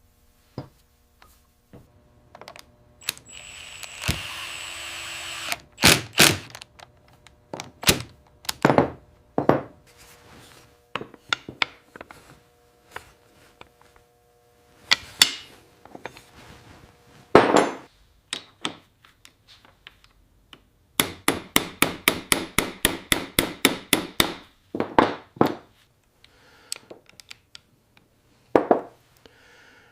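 Workshop hand-tool sounds: scattered knocks, clicks and taps, with a couple of seconds of steady hissing noise early on and a quick even run of taps, about seven a second, about three-quarters of the way through.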